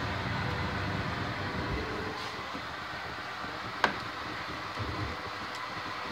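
Steady background hiss with one sharp click about four seconds in: metal tongs striking a foil-lined baking sheet as they pick up a baked meatball.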